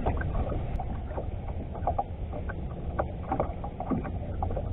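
Steady low rumble of wind and water against a fishing boat's hull, with scattered small clicks and taps throughout.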